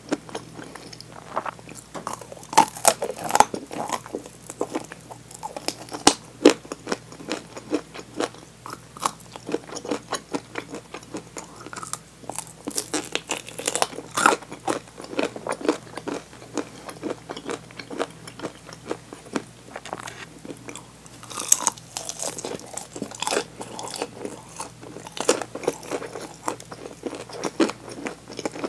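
Close-miked biting and chewing of crispy fried chicken drumsticks: irregular crunches of the fried coating, loudest in a few clusters of bites, between quieter chewing.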